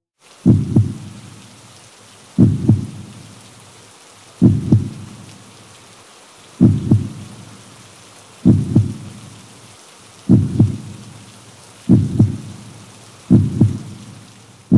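Heartbeat sound effect: deep double thumps, lub-dub, about every two seconds, coming slightly faster near the end. Under it runs a steady rain-like hiss.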